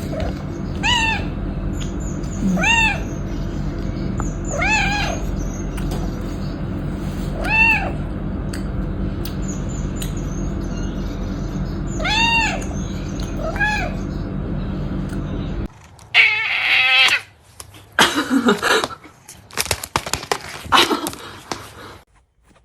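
A cat meowing six times in short, rising-then-falling meows over a steady low hum. About three-quarters of the way through, the audio cuts abruptly to louder, irregular noises with a couple of sliding cries.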